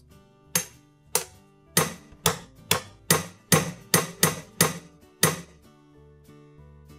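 Ball-peen hammer tapping a 5/32 steel drift punch, metal on metal, to drive the pin out of the KitchenAid stand mixer's gear shaft: about eleven sharp taps, coming faster after the first few and stopping a little after five seconds. Soft background music runs underneath.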